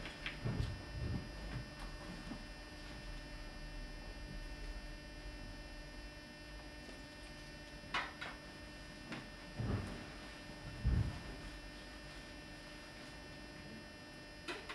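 Low steady electrical hum, with a few soft knocks and a sharp clink about eight seconds in as glass cruets and a metal plate are handled on the altar table.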